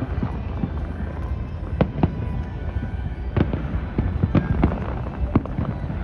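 Distant aerial fireworks shells bursting: irregular sharp bangs and cracks, a few every second, over a continuous low rumble.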